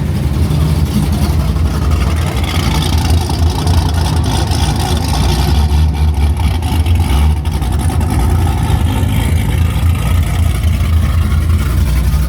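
Car engine and exhaust running steadily with a deep, loud low drone.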